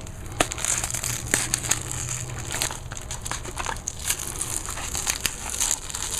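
Parts packaging being opened and handled: a continuous crinkling rustle with many sharp crackles.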